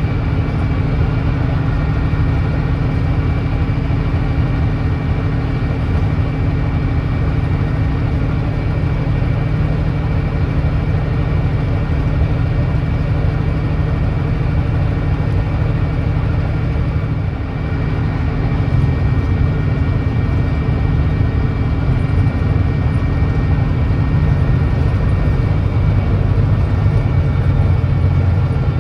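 Volvo D9B 9.3-litre diesel engine of a Volvo B9TL double-decker bus running steadily under way, on a bus with an exhaust leak. The sound dips briefly a little over halfway through, then builds slightly louder.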